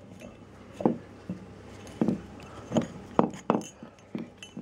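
Irregular light knocks and clinks of metal motor parts being handled, as the back motor end shield is fitted to the stator and its wires are worked through a hole in the end shield, about eight taps with uneven gaps.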